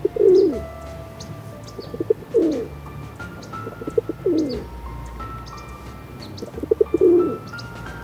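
Feral pigeons cooing four times, each coo a short stutter of quick pulses ending in a falling note. Faint high bird chirps sound in between.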